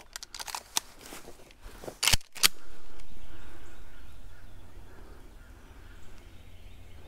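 Shotgun fired at squirrels: two sharp, very loud reports about a third of a second apart, about two seconds in, followed by a fading low rumble. Before the shots, scattered light rustling and clicks.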